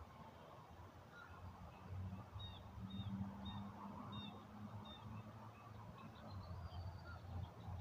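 Faint birdsong: a bird giving a run of short, high chirps about every half second, over a low steady hum.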